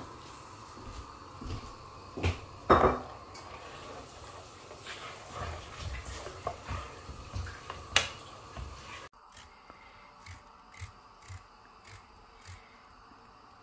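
Wooden spoon stirring and knocking in an aluminium pot of kadhi batter over a steady hum, with one loud short sound about three seconds in. After about nine seconds, quieter small clicks of a paring knife cutting potato pieces over a bowl.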